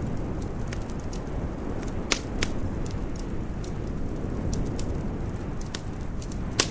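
Wood fire crackling, with scattered sharp pops; the loudest come about two seconds in and just before the end. Under them runs a steady low rumble.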